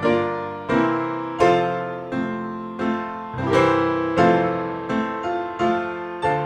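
Background piano music: notes and chords struck one after another, roughly one to two a second, each dying away before the next.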